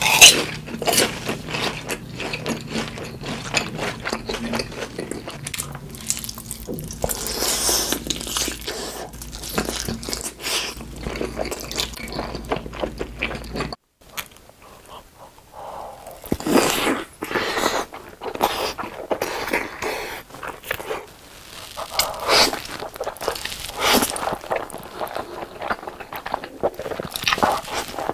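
Close-miked eating: people taking big bites and crunching and chewing food, with many irregular crackles and smacks. A brief drop in sound about halfway through, after which the eating noises continue with a different character.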